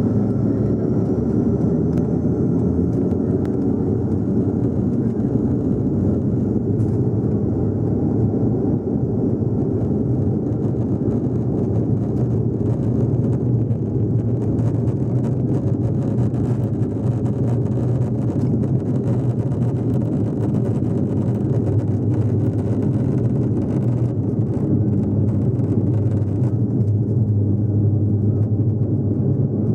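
Bombardier Q400's twin turboprop engines and propellers running at high power during the takeoff roll, a loud steady drone heard inside the cabin, with the main-gear wheels rumbling on the runway.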